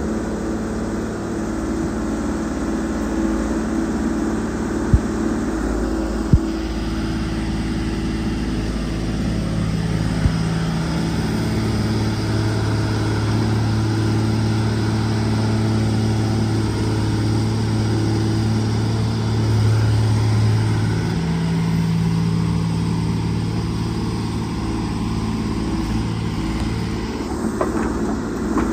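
Case 125B tracked excavator's diesel engine running steadily as it digs sandy gravel, its note stronger for about ten seconds midway through. Two sharp knocks come about five and six seconds in.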